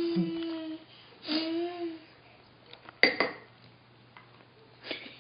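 An infant sings between spoonfuls, two held notes in the first two seconds. About three seconds in, a spoon clinks on the bowl, with a lighter clink near the end.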